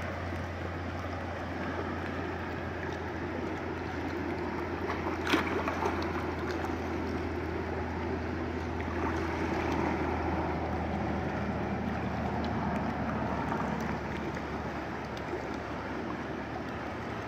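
Shallow creek water flowing and rippling over rocks, a steady rushing noise with a constant low rumble beneath it. A single sharp click sounds about five seconds in.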